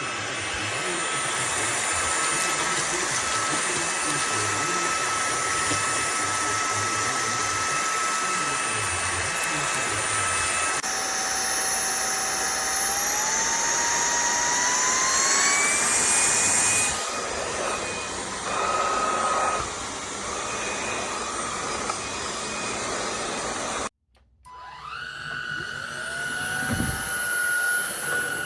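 Cordless stick vacuum running with a steady motor whine. About eleven seconds in, its pitch climbs over several seconds as the motor speeds up. Later the sound cuts out abruptly and the motor spins back up to a steady whine.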